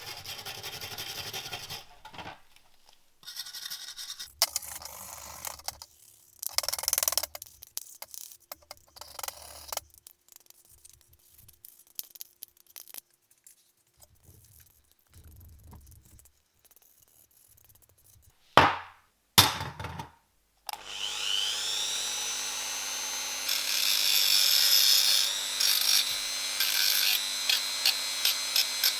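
Short scraping and rubbing strokes of hand work on a small part, with two sharper, louder strokes. Then a small electric power tool spins up, rising in pitch, and runs steadily with a regular ticking of about three a second.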